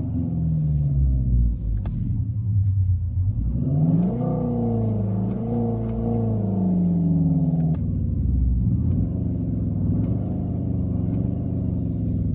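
Synthesized engine sound from the Renault Clio GT's R-Sound Effect system, played through the car's speakers, rising and falling in pitch with the revs. The note changes abruptly about eight seconds in to a different engine character.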